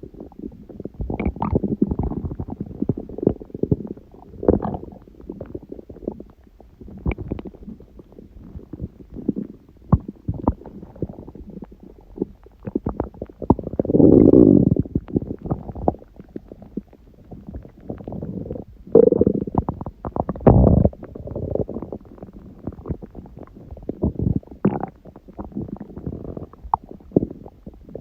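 A person's stomach growling and gurgling in irregular bursts of rumbles and small pops, the longest and loudest rumbles coming a little past the middle. The uploader puts the noise down to a large udon meal after a long break from gluten.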